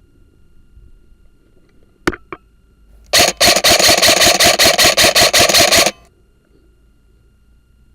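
Airsoft gun firing: two sharp clicks, then about a second later a loud, rapid burst of shots lasting about three seconds that cuts off suddenly.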